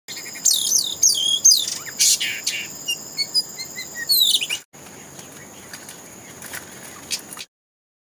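Oriental magpie-robin (kacer) singing: loud, quick descending whistles and short chirps, then fainter calls after a brief break about halfway. The song cuts off suddenly near the end.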